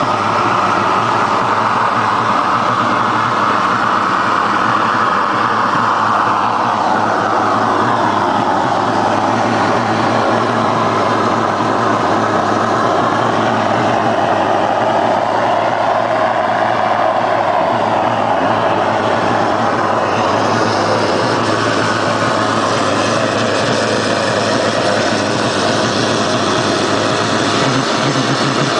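Heavy-oil jet furnace burner running: a steady, loud rushing noise whose tone slowly wavers.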